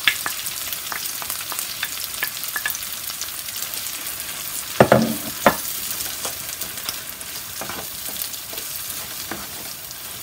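Rice mixed with raw egg sizzling in oil in a frying pan of sautéed vegetables while a wooden spatula stirs it, scraping and clicking against the pan. A couple of louder knocks come about five seconds in.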